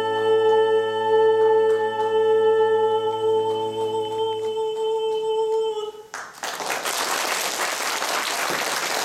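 A male singer and a small orchestra of strings and woodwinds hold the song's final note, which dies away about five to six seconds in; then the audience breaks into applause.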